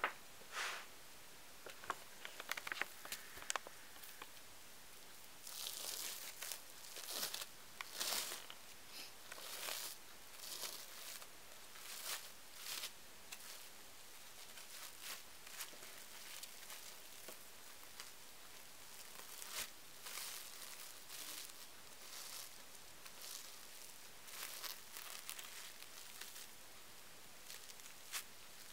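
Kitchen knife cutting pressed mackerel sushi (vinegared mackerel on pressed sushi rice) in a series of short strokes, busiest from about five to thirteen seconds in and again near the end.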